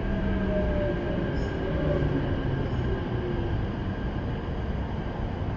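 A Keikyu 1000-series electric train heard from inside the car: its Mitsubishi full-SiC VVVF traction equipment whines in several tones that slide down in pitch as the train slows, over a steady rumble of wheels and track.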